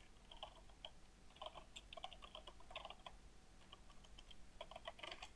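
Faint typing on a computer keyboard, keys tapped in short runs with brief pauses between them.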